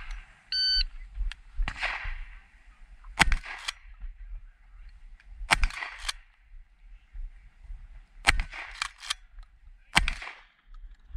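Electronic shot-timer beep about half a second in, then a shotgun firing repeatedly, the shots coming in quick pairs and threes.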